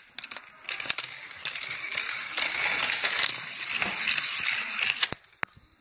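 Toy cars rolling down a plastic Fisher-Price spiral track, a dense rattling clatter that builds about a second in and runs for several seconds, followed by two sharp clicks near the end.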